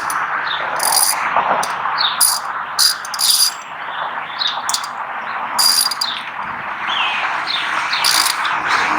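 Small birds chirping over a steady background hiss, with several short, high bursts of clicking scattered through.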